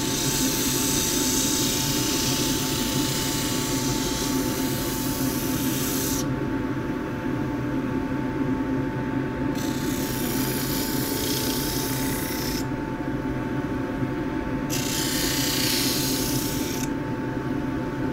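Juniper spatula blank being sanded against a spinning sanding disc on a woodturning lathe, over the lathe's steady hum. The sanding hiss comes in three spells: a long one of about six seconds at the start, a second of about three seconds midway, and a shorter one near the end, with the wood lifted off in between.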